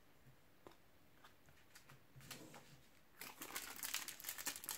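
A few faint taps of trading cards being laid on a table. About three seconds in, the crinkling of a foil trading-card packet being picked up and handled begins.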